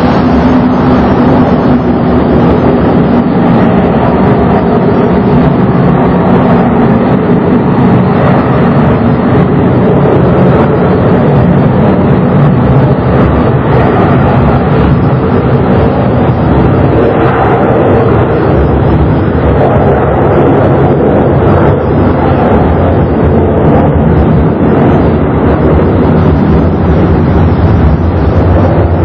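Boeing 727-200 freighter's three Pratt & Whitney JT8D turbofans at takeoff power during the takeoff roll: loud, steady jet noise that holds level throughout.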